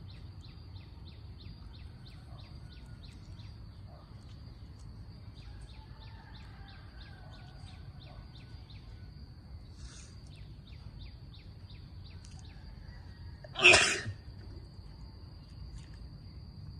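A person sneezes once, sharply and loudly, about 14 seconds in. Behind it runs a faint, steady high-pitched whine that pulses about four times a second.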